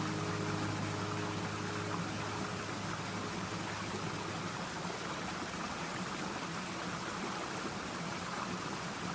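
Steady hiss of running water, like a stream, with a low held tone fading out by about halfway through.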